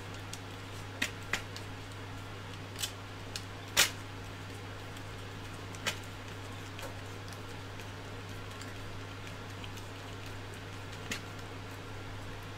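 Hand screwdriver working a tight screw into the 3D-printed plastic extruder parts of a Prusa i3 MK3S kit: a few scattered sharp clicks, the loudest about four seconds in, over a steady low hum.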